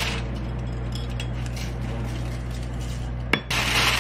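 Aluminium foil crinkling as it is folded around potatoes, the loudest part, starting near the end after a sudden break. Before it, a steady low hum with faint clinks of handling.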